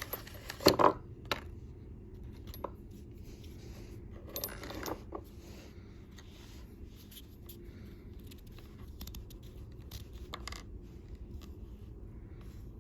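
A new spark plug being unpacked and handled: scattered sharp clicks and small hard taps, with a short rustle of packaging about four and a half seconds in and a few more clicks near the ten-second mark.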